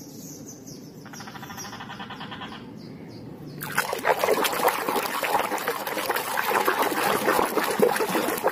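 A hand swirls and splashes water in a plastic basin to wash plastic toys. The splashing starts loud and dense a little over a third of the way in, after a quieter start.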